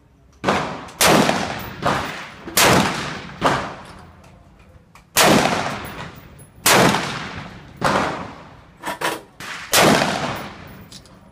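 Rifle shots fired from a bench, about ten sharp cracks at irregular intervals, each trailing off in echo; some are much louder than others.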